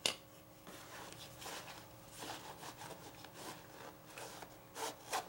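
Clothing rustling and rubbing as a folding knife is handled in a trouser pocket, with a sharp click right at the start and two quick clicks near the end.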